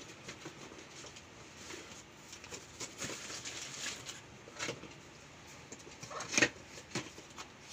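Cardboard packaging being handled: a shipping carton's flaps opened and the folding fan's boxed package lifted out and set down. The sound is scraping and rustling with a few sharper knocks, the loudest about six seconds in.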